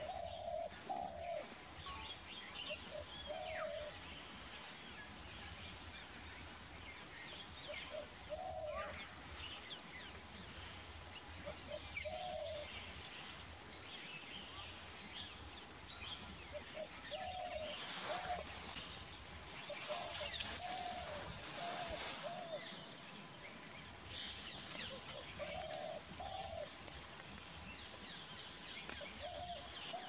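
Bar-headed geese giving short honking calls every few seconds, with a quick run of several calls about two-thirds of the way through. Small birds chirp faintly throughout, over a steady high hiss.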